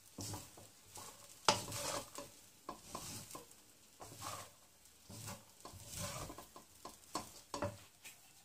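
Wooden spatula scraping and tossing cooked basmati rice in a nonstick wok, in irregular strokes, with a light sizzle of the rice frying.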